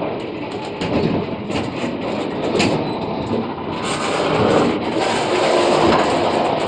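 Loaded freight train's covered box wagons rolling past close by: steel wheels rumbling and clattering on the rails, with irregular sharp knocks.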